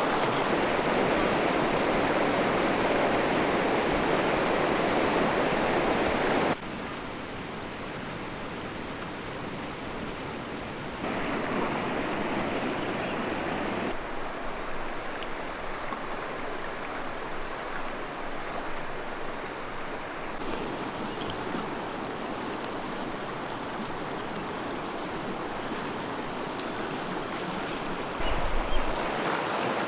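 Rushing water, a steady hiss-like noise that drops sharply about six seconds in, rises again around eleven seconds and eases back down a few seconds later. A brief low thump comes near the end.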